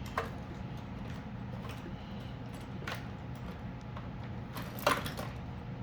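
Parts of a fuel pump hanger being handled, giving a few separate small clicks and knocks, the loudest near the end, over a steady low hum.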